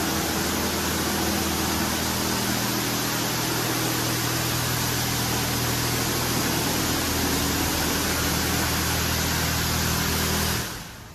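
PDQ LaserWash M5 touchless car wash spraying water from its overhead gantry arm onto a car: a loud, steady hiss of spray over a steady low machine hum. Both cut off suddenly near the end.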